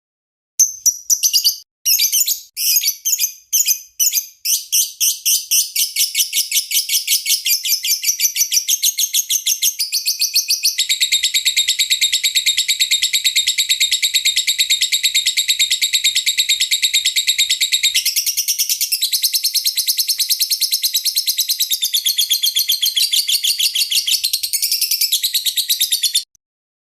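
Lovebird singing: separate sharp high chirps at first that speed up into a fast, continuous chattering trill held for many seconds, then change pattern before stopping abruptly near the end.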